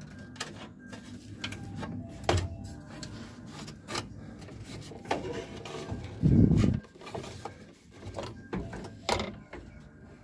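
Plastic gauge cluster housing of a 1968 Camaro being handled and fitted into the dash, giving scattered light clicks and knocks of plastic against the dash, with one dull low thump about six seconds in.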